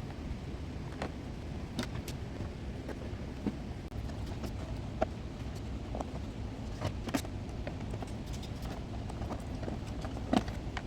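Irregular light clicks and knocks, about ten of them scattered through, over a steady low hum.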